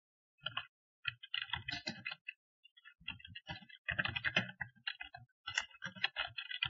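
Computer keyboard typing: short runs of keystrokes with brief pauses between them.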